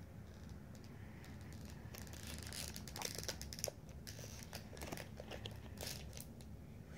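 Foil Pokémon booster pack wrapper crinkling in a child's hands as he works it open, faint at first, then a run of irregular crackles from about two seconds in.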